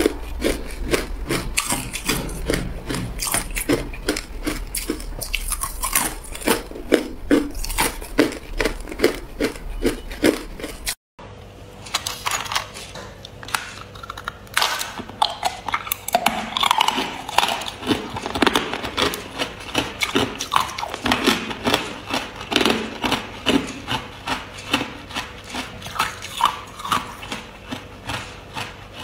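Ice being crunched between the teeth, close to the microphone: rapid, repeated crunches, several a second. About eleven seconds in the sound cuts out for a moment, and the crunching resumes a little quieter over a faint steady hum.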